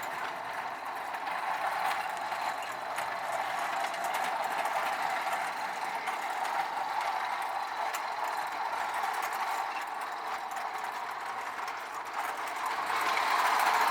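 Marx toy train running on its track: a steady electric-motor whir with the clatter of wheels over rail joints, growing louder near the end as the train comes closer.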